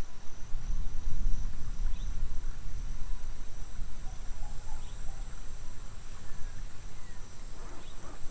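Steady high-pitched chirring of insects, over a low rumble that is strongest in the first few seconds.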